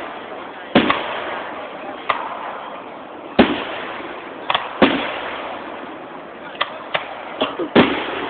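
Fireworks going off: about nine sharp bangs over eight seconds at uneven spacing, some in quick pairs, each followed by a hiss that dies away.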